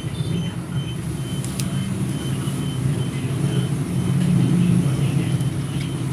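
A steady low rumbling hum with a few faint light clicks.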